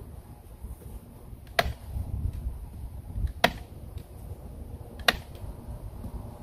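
Three sharp, single knocks, evenly spaced about a second and a half to two seconds apart, over a steady low rumble.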